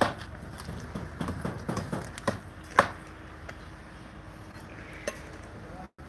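Bricks being laid in mortar: a run of sharp knocks and clinks of brick and trowel, the loudest a little under three seconds in.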